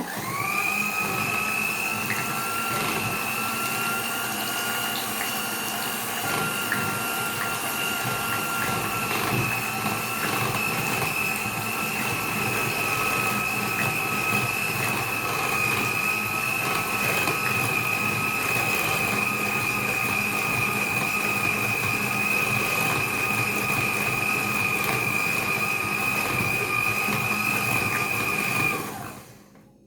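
Electric kitchen mixer whirring steadily as it beats a lemon cream of yogurt, cream and lemon juice. Its whine rises as it starts and falls away when it is switched off near the end.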